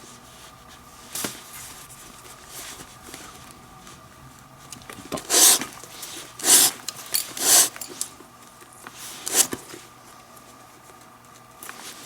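Leather glove lace being pulled through tight lace holes in a baseball glove: a series of short rubbing swishes, a single one about a second in and four or five more close together near the middle.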